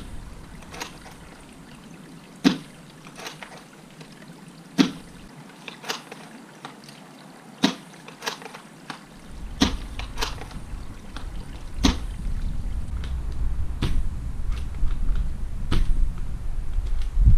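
Silverback SRS airsoft sniper rifle with its Pull-Push bolt firing 0.43 g BBs: a sharp shot crack every few seconds, with quieter clicks between the shots. A low rumble comes in about nine seconds in.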